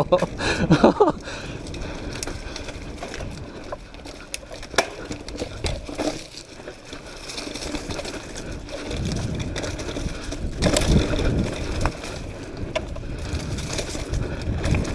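Mountain bike rolling fast down a dirt trail: the tyres crunch over dirt and leaves and the bike rattles with sharp clicks over bumps, louder and rougher over rougher ground.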